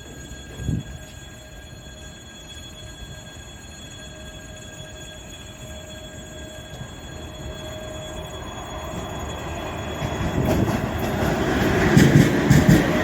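Freight train hauled by a 3ES5K 'Yermak' three-section electric locomotive approaching, growing steadily louder. The wheels squeal in steady high tones as it comes off a curve. From about ten seconds in, the wheels start clattering over the rail joints as it draws near.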